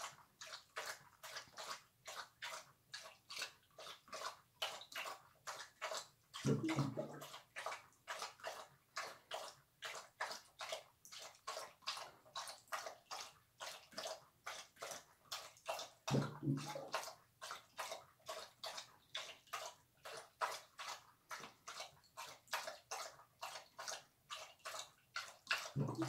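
A dog lapping water from a bowl, a steady run of quick wet laps at about three a second. Twice the lapping pauses for a brief low, pitched sound.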